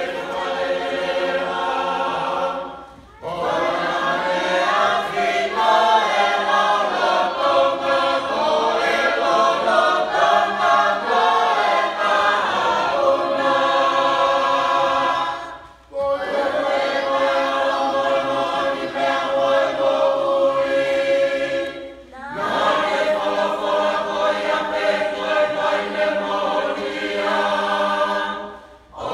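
Church congregation singing a Tongan hiva usu, the traditional unaccompanied chanted hymn, in long phrases broken by brief pauses for breath.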